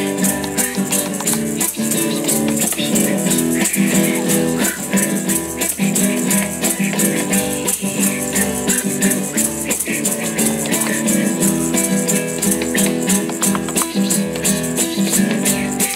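Background music with a fast, steady shaker rhythm over plucked strings.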